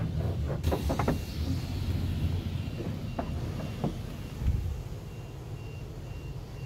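A short high electronic beep repeating about twice a second, starting about two seconds in, over the low rumble of a car; a dull thump about four and a half seconds in.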